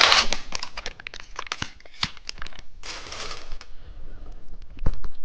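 Plastic snack wrapper crinkling and being torn open, with many small crackles and two short tearing rushes. A single dull knock comes near the end.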